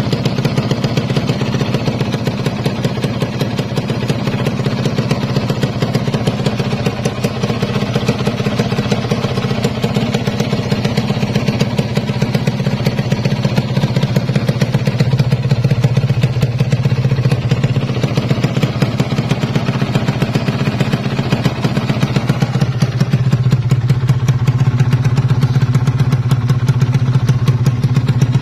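Kawasaki Ninja R two-stroke single-cylinder engine running steadily with a fast, even pulse, growing a little louder about halfway through.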